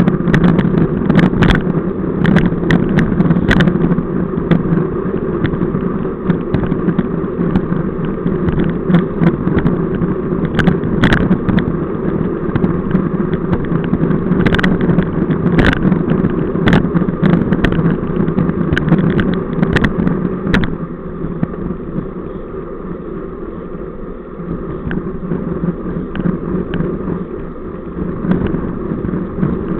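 Wind buffeting a bike-mounted camera's microphone and road rumble from a road bike ridden at speed in a group, with frequent sharp knocks and rattles from bumps in the road surface. The rush gets quieter about two-thirds of the way through.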